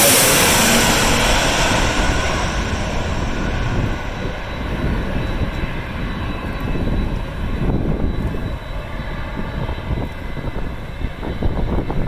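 Airliner passing low overhead on landing approach, loudest at the start with its pitch falling as it passes, then fading into a lower engine rumble as it moves away toward the runway. Gusty wind rumbles on the microphone.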